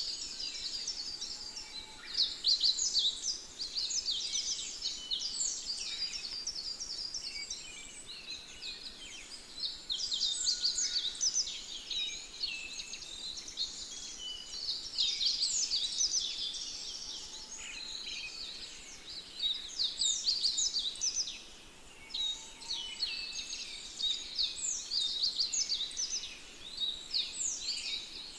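A dense chorus of small birds chirping: a steady stream of quick, high, falling notes from many birds at once.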